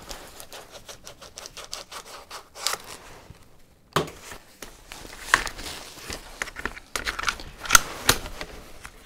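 An UPPAbaby Vista V2 stroller bassinet being handled and fitted to the frame: a run of small plastic clicks and scrapes, a sharp knock about four seconds in, then more clicks and clunks.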